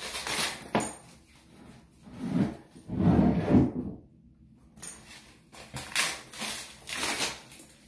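Handling noises from a leather crossbody bag and the tissue paper wrapped around its strap: irregular rustles and bumps, the loudest about three seconds in.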